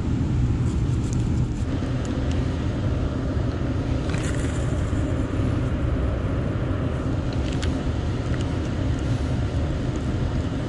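Steady low rumble and hum of distant road traffic, with a couple of faint brief clicks about four and seven and a half seconds in.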